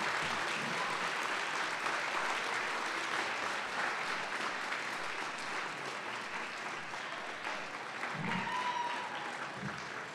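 Audience applauding, the clapping slowly growing quieter.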